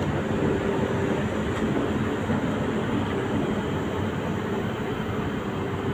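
SNCF Z 23500 (TER 2N NG) double-deck electric multiple unit giving off a steady electrical hum, with a held tone over a constant rushing noise.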